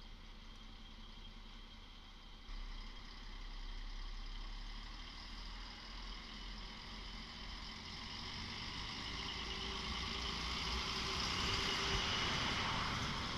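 Regional diesel multiple unit approaching and drawing alongside. Its engine and running noise grow steadily louder as it comes close.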